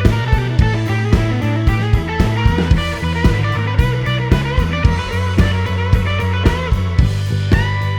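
Background rock music: electric guitar over a steady drum-kit beat and bass.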